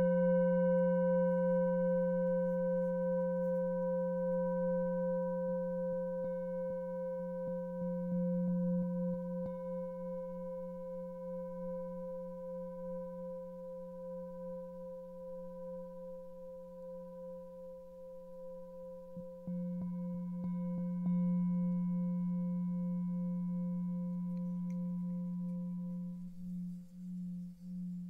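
An 18.5 cm seven-metal singing bowl ringing with a steady low hum and a higher tone over it, with fainter overtones. The ring slowly fades, then grows louder again about twenty seconds in, with a slow wobbling beat in the tone near the end.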